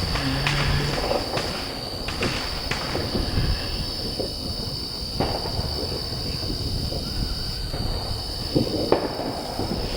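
A steady, high-pitched chorus of crickets or katydids over a low outdoor rumble, with scattered faint pops from distant fireworks.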